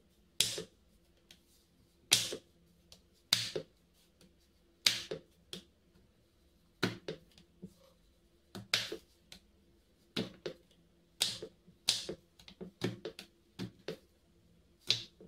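Kitchen knife chopping a bar of dark chocolate on a wooden cutting board: sharp, separate chops at an uneven pace of roughly one a second, each a crisp crack of the chocolate with a knock of the blade on the wood.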